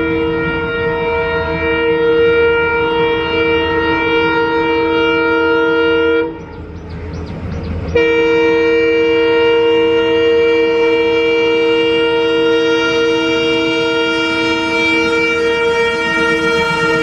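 Train horn sounding a steady, held chord over a low rumble of running wheels; it cuts off about six seconds in, leaving only the rumble, and comes back about two seconds later, held to the end.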